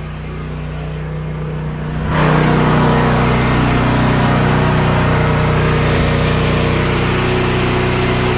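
Portable generator's engine running steadily at a constant speed. About two seconds in it gets much louder and clearer, with a hiss added over the hum.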